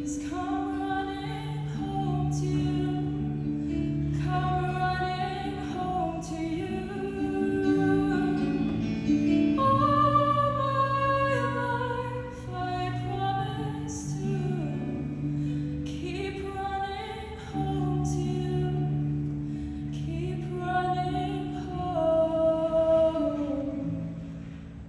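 Show choir singing a song, with voices holding long notes and moving between them.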